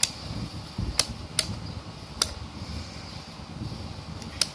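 Rotary selector switch of a YT-228 digital multimeter clicking through its detents as the dial is turned: about five sharp clicks, irregularly spaced.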